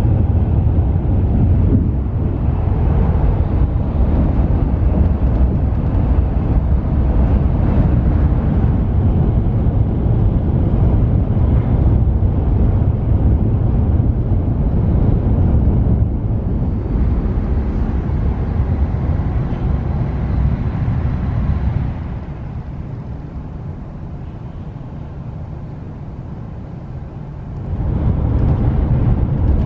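Steady low rumble and rush of a Shinkansen bullet train running at about 260 km/h, heard from inside the passenger cabin. It drops quieter for about five seconds near the end, then comes back up.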